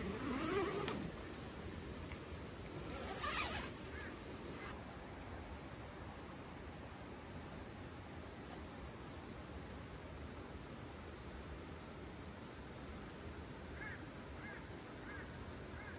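A tent zipper being pulled, with two short rasps in the first few seconds. Then a faint high chirp repeats about twice a second, and a few short bird chirps come near the end.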